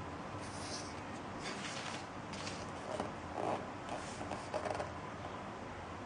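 A page of a large art book turned by hand: paper rustling and swishing, then a few louder soft flaps between about three and five seconds in as the page comes down.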